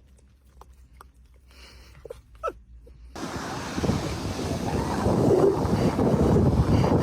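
Quiet with a few faint short squeaks, then about three seconds in a loud rushing noise starts abruptly and grows louder.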